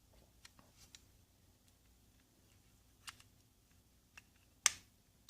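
Light, scattered clicks and taps of small plastic power window switch parts being handled, a few faint ones at first and the sharpest two near the end.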